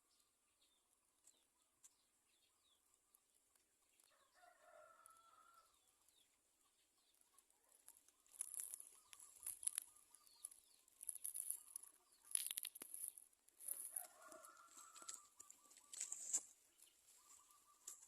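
Faint rustling and fluttering of birds moving at a nest, in bursts through the second half. A faint drawn-out call is heard twice, once about four seconds in and again past the middle.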